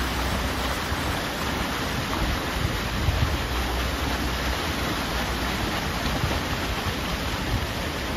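Wind blowing across the microphone: a steady hiss over a low, unsteady rumble.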